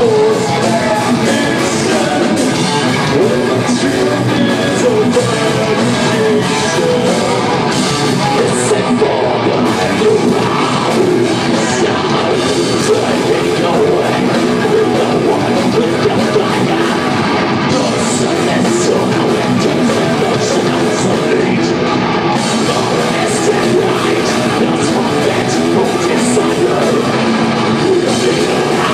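Heavy metal band playing live: electric guitars and drums, with a singer's vocals.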